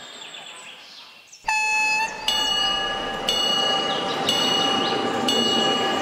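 Rolling train noise fading out. About one and a half seconds in, a short pitched tone cuts in abruptly, followed by a level-crossing warning bell striking about once a second over the rumble of an approaching train.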